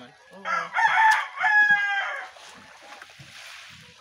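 A rooster crowing once, a loud call lasting about two seconds that starts just under half a second in.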